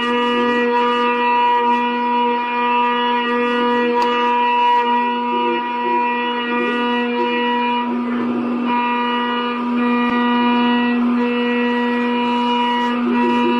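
CNC lathe at work, giving a steady, loud whine that holds one pitch with many overtones, briefly broken by a rougher noise about eight seconds in.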